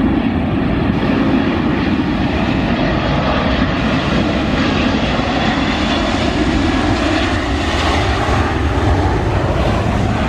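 Jet engines of a Boeing 737-800 airliner (CFM56-7B turbofans) running in a steady, loud, even roar as it passes close by on final approach and landing.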